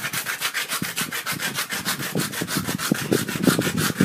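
A small toy scraped rapidly back and forth against a rough concrete sidewalk, about eight strokes a second.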